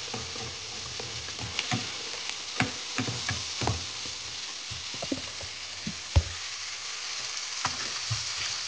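Diced meat, tomato and onion sizzling in a stainless steel frying pan as they are stirred with a black spatula, which scrapes and knocks against the pan at irregular moments; the loudest knock comes about six seconds in.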